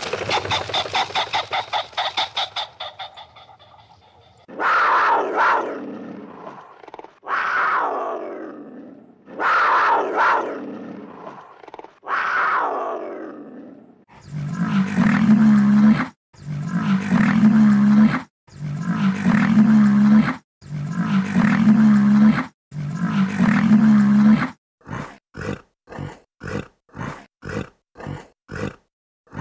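A run of loud animal calls: a rapid pulsing call at first, then four long calls falling in pitch about two seconds apart, then five deep calls of even length, and near the end quick short grunts about two a second.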